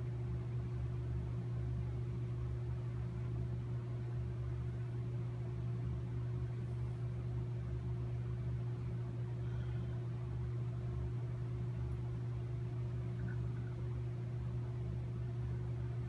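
Steady low machine hum, unchanging throughout, with a faint higher tone riding above it.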